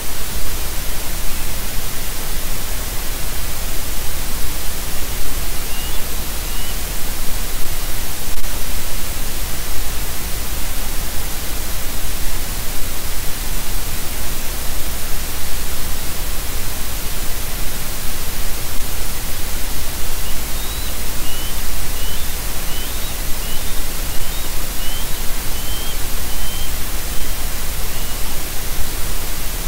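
Steady, loud static hiss from the nest camera's audio feed. Faint short chirps sound twice about six seconds in, then as a run of about a dozen in the second half.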